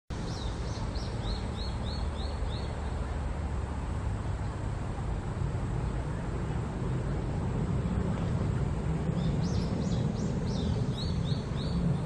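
Cicada singing in short repeated phrases, about four a second, in two bouts: one at the start and one near the end. A steady low rumble runs underneath.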